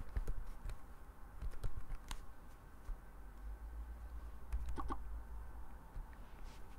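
Faint, scattered clicks of computer keys over a low steady hum, with a short blip about five seconds in.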